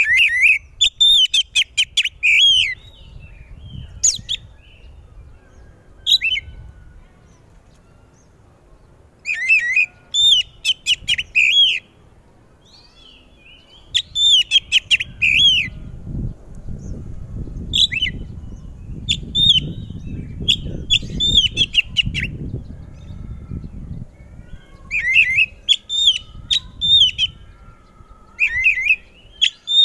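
Oriental magpie-robin (kacer) singing loudly: bursts of rapid, sharp whistled notes that slide in pitch, phrase after phrase a few seconds apart.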